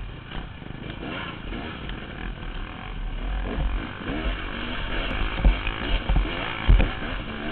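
KTM dirt bike engine running at low revs, its pitch rising and falling with the throttle, heard from the rider's helmet. Heavy low thumps come through as the bike jolts over the rutted trail, twice strongly in the second half.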